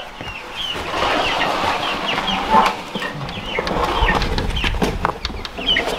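Young chicks peeping inside a plastic tote, many short high chirps overlapping. Rustling, knocks and a low rumble from the tote being carried run underneath, loudest around the middle.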